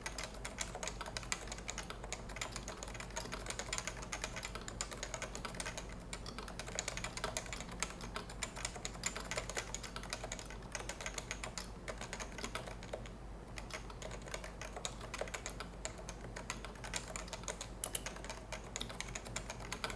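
Steady fast typing on a Topre Realforce 103UB keyboard: a dense run of keystrokes on its variable-force capacitive rubber-dome switches, with the stems and stabilizer greased with white lithium grease. There is a brief lull about two-thirds of the way through.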